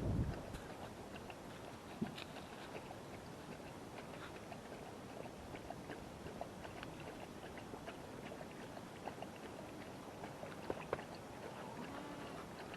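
Faint scattered clicks and shuffling as a goat is held and handled in a pen, with a dull thump at the very start.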